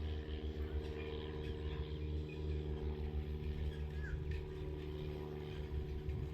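A steady low motor hum throughout, with a few faint short bird chirps over it.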